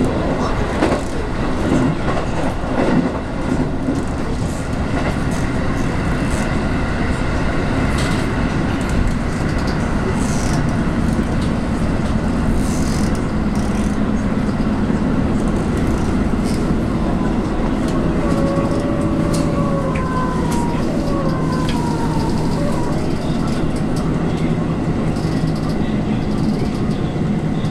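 A JR West 221 series electric train running, heard from inside the passenger car: a steady rumble of wheels on rail with a few sharp clicks in the first seconds. Around the middle a thin whine slides down and up in pitch.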